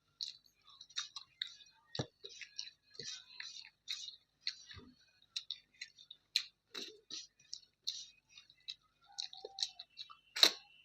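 Close-up eating sounds: chewing and wet mouth smacks as a series of irregular short clicks, with a few soft thumps and one louder sharp click near the end.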